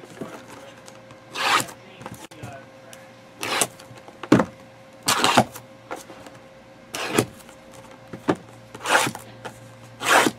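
Shrink-wrapped cardboard trading card boxes being slid and handled on a desk: a series of short, irregular scraping swishes, with a faint steady hum underneath.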